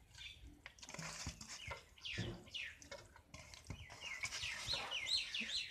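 Chickens calling: a run of short, high, falling cheeps that comes thicker in the second half. Under them, a few soft knocks as chicken pieces are packed by hand into a green bamboo tube.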